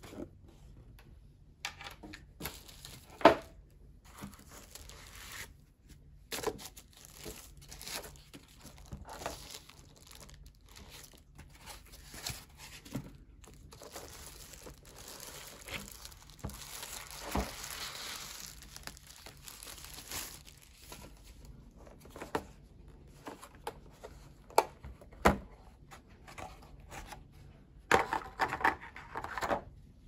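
Plastic packaging crinkling and rustling as a mechanical keyboard is slid out of its protective plastic sleeve, most continuously in the middle. Scattered sharp knocks and clicks from handling the box and keyboard, the loudest about three seconds in and a quick cluster near the end.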